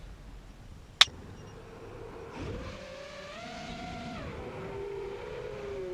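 A sharp click about a second in, then the FPV quadcopter's brushless motors and 5-inch propellers spool up into a whine that rises and falls in pitch with the throttle as it takes off.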